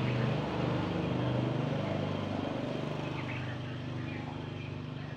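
An engine running steadily with a low hum that eases off slightly near the end. A few faint chirps from caged red-whiskered bulbuls come through above it.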